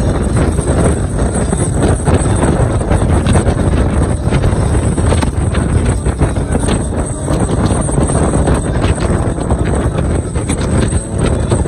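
Car driving at road speed: steady, loud road and wind noise, with wind buffeting the microphone.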